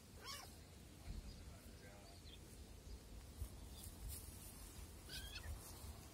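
Kittens play-fighting, with short, faint, high-pitched squeaks, one at the start and another about five seconds in, over a steady low rumble.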